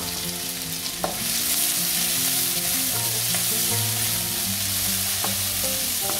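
Sliced onion with akabare chillies and five-spice sizzling in hot oil in a kadai, stirred so that the spatula clinks against the pan about a second in and a couple of times near the end. The sizzle gets a little louder after the first clink.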